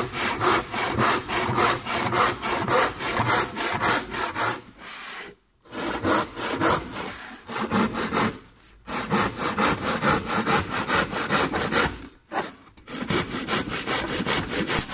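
Handsaw cutting through wooden torus-pattern skirting board along a square pencil line, in quick, even back-and-forth strokes. The sawing stops briefly three times, near the middle and again about two-thirds through.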